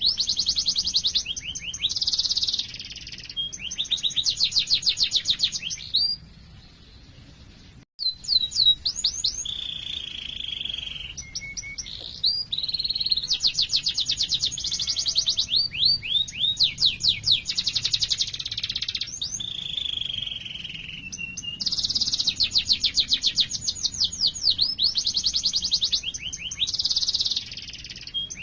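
Domestic canary singing a long song: fast runs of repeated rising chirps and rolling trills, with a few held buzzy notes. There is a short pause about six seconds in.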